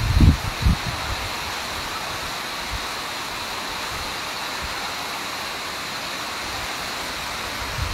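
Heavy monsoon rain falling in a steady hiss. Wind buffets the microphone a few times in the first second.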